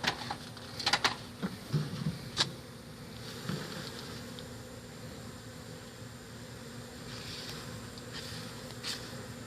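A mass of honeybees buzzing steadily, with a few sharp clicks and knocks in the first couple of seconds and another near the end.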